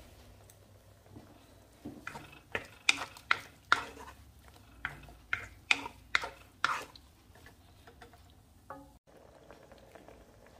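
Wooden spoon stirring squid in sauce in a nonstick wok: a quick run of about a dozen knocks and scrapes against the pan, lasting about five seconds and starting about two seconds in, then dying away.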